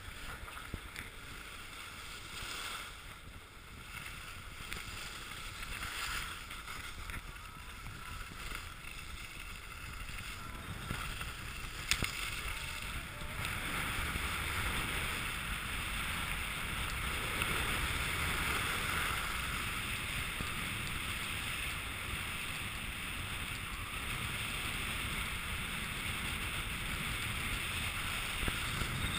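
Edges sliding and carving over groomed snow, a steady scraping hiss with wind rumble on the microphone; it grows louder about halfway through. A single sharp click stands out shortly before that.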